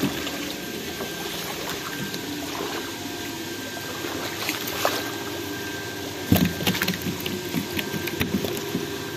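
Pond water splashing and trickling over a steady pump-like hum, with a sharper splash or knock about six seconds in.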